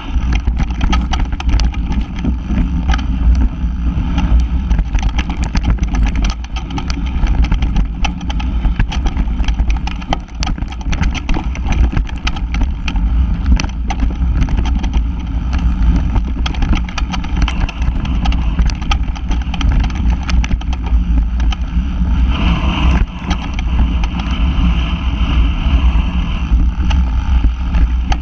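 Mountain bike ridden fast down a rough forest trail, heard from a camera mounted on the bike: a steady wind rumble on the microphone with frequent clicks and rattles as the bike jolts over bumps. Near the end a louder hiss joins as the tyres run over a carpet of dry leaves.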